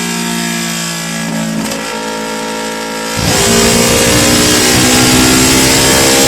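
Yamaha R25's 250 cc parallel-twin engine running at a steady speed. About three seconds in, the throttle opens sharply: it gets much louder and the pitch climbs slowly.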